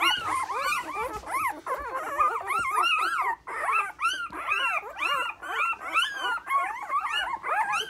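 Several young puppies squawking and whining together, many high calls that rise and fall and overlap without a break: the puppies are hungry and want to nurse.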